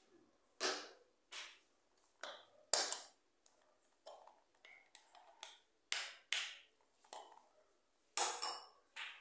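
A metal spoon scraping and clinking against a pot and a silicone spatula while cream cheese is scooped into shredded chicken filling. About ten short scrapes and clinks come at irregular intervals, the loudest pair near the end.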